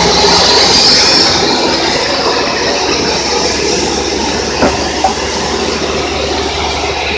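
Portable bandsaw mill running, its blade sawing through acacia timber with a steady loud screech and hiss that eases a little after about a second. Two short knocks come about four and a half and five seconds in.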